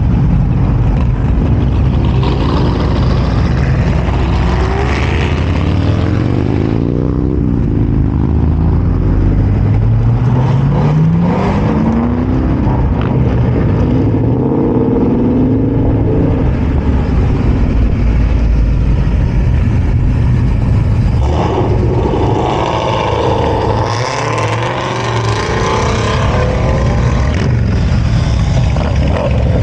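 Cars driving past one after another as they pull out of a lot, their engines revving with the pitch rising as they accelerate away. Near the end, cruiser motorcycles ride past.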